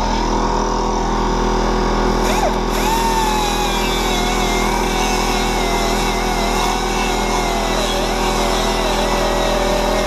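Pneumatic die grinder running against a metal engine cover over a steady machine drone, likely the air compressor feeding it. From about two and a half seconds in, the grinder's whine sags slowly in pitch as it bears on the metal.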